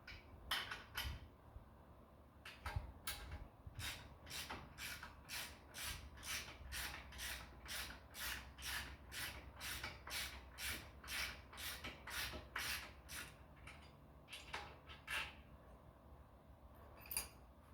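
Capri half-inch drive ratchet being worked on a bolt: a long run of sharp, even ratcheting clicks, about three a second, with a few scattered clicks before and after.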